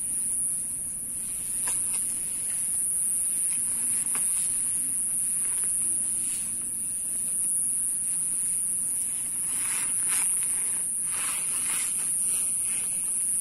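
Cloth rustling as a person wraps a checked blanket around himself, strongest about ten to twelve seconds in, over a steady high-pitched hiss.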